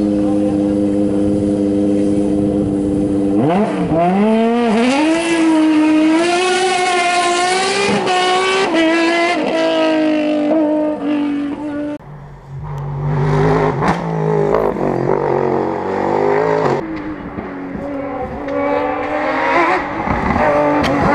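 Open-cockpit sports-prototype race car engine, loud and close. It holds a steady high note for a few seconds, then accelerates hard with the revs climbing and dropping again and again through gear changes. Later it is heard further off, revving up through the gears again near the end.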